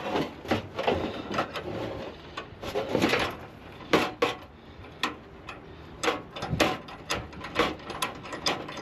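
Irregular knocks, clunks and clatter of junk being handled and shifted in a kerbside pile, with the sharpest knock about four seconds in.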